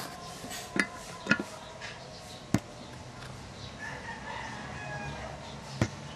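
A handful of sharp metallic clicks, irregularly spaced, as a ball bearing is pressed onto a servo gear's shaft with a drill press; pushing the bearing in is hard going. A faint drawn-out call sounds in the background about four seconds in.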